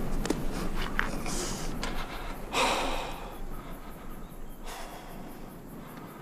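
A distressed man breathing heavily through his nose and mouth, with one loud, sharp exhale about two and a half seconds in.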